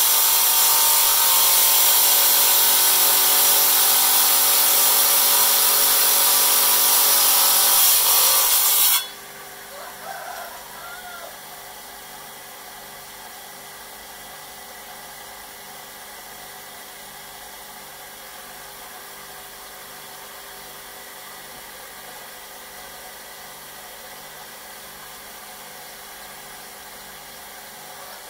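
Electric stone-cutting saw grinding loudly through a stone for about nine seconds, then the grinding stops suddenly as the blade cuts through. The saw keeps running free with a much quieter steady hum, with a few small handling noises just after the cut.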